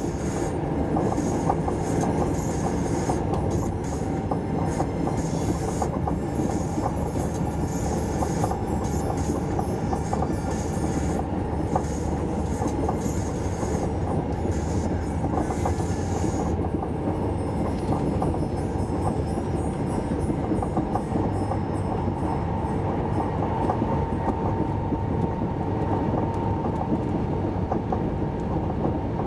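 Steady running noise of an SJ 3000 (X55) electric multiple-unit train at speed, heard inside the passenger car: a continuous low rumble of wheels on rail. A fainter high hiss fades out about halfway through.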